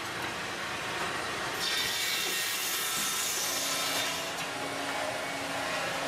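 Sawmill edger running, its circular saw blades cutting through a board for a couple of seconds in the middle with a bright hissing rasp, over the steady hum of the machine and its feed chains.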